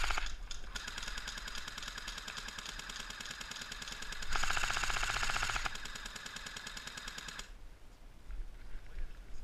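Airsoft electric guns firing on full auto: a rapid, even rattle of shots in long bursts, louder for a stretch about four and a half seconds in, and stopping about seven and a half seconds in.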